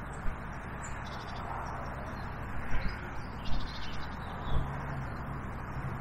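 Outdoor riverbank background: a steady rushing haze of wind and water with a low hum, a few soft bumps, and birds calling faintly, including a short run of rapid calls about three and a half seconds in.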